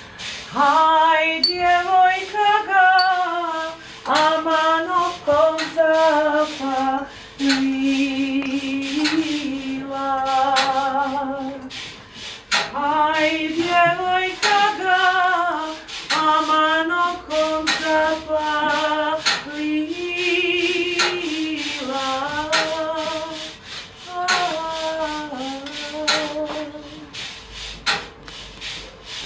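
A woman singing a slow melody solo, with vibrato, in long held phrases broken by short pauses. Short clicks and scrapes sound here and there behind the voice.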